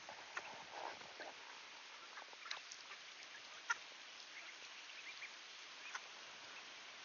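Ducks foraging with a few soft, short calls and ticks scattered through a faint steady outdoor hiss, one sharper click a little under four seconds in.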